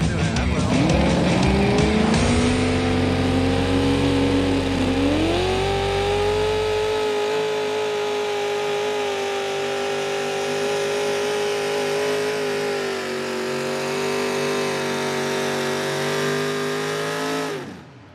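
A pulling vehicle's engine running at full throttle during a hook. Its pitch climbs over the first few seconds, steps up about five seconds in and holds steady at high revs, then stops abruptly near the end.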